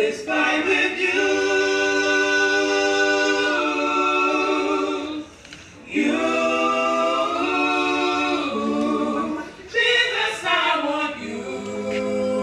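Small gospel vocal group of men and women singing long held chords in close harmony, in phrases broken by two brief pauses.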